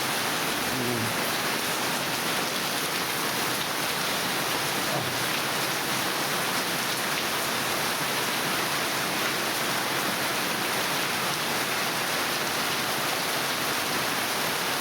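Heavy monsoon rain pouring steadily, an even, unbroken hiss of rain on surfaces.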